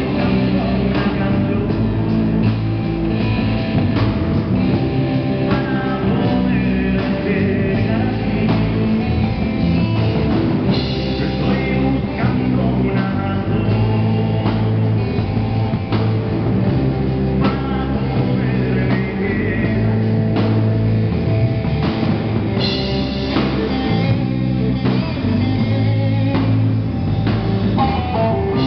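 Live rock band playing: distorted electric guitars, electric bass and drum kit, with a singer's voice over them through the PA.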